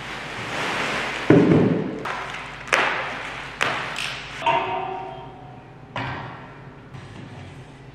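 Plastic wrapping rustling as chairs are unwrapped, then a heavy thump about a second in as a chair is set down on a hard floor. A few sharp knocks follow, one leaving a brief metallic ring from a black tubular metal chair frame.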